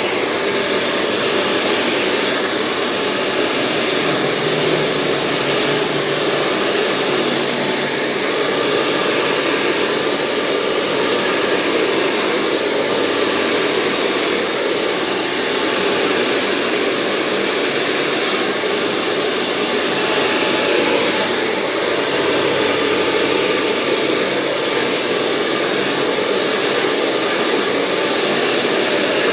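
Hair dryer running steadily with an even rushing hiss that shifts slightly every few seconds.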